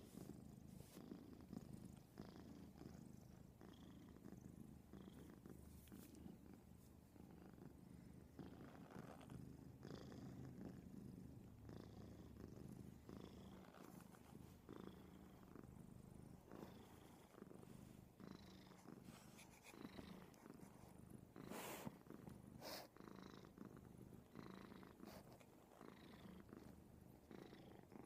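A small domestic cat purring faintly and steadily while kneading, with two brief clicks about three-quarters of the way in.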